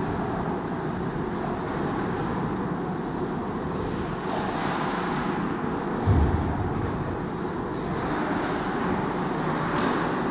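Ice hockey game sound: a steady wash of rink noise with a few sharp skate scrapes on the ice, and one loud dull thump about six seconds in.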